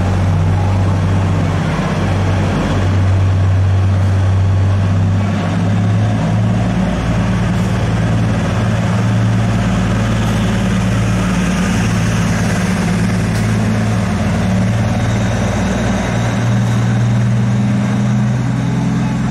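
Diesel train passing close along a station platform, its engine a loud, steady low hum.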